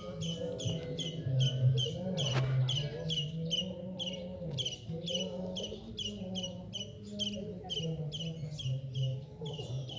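Background music: a low melody of held notes over a steady, high chirping beat about three times a second, with one sharp click about two and a half seconds in.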